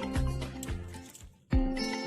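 Background music with a steady beat fades away over the first second and a half, goes almost silent, then starts again abruptly with plucked guitar and bass.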